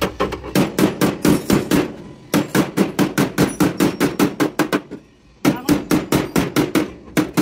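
Hand hammer striking the sheet-steel door panel of a Hino truck cabin in fast runs of blows, about five or six a second, with short breaks about two and five seconds in.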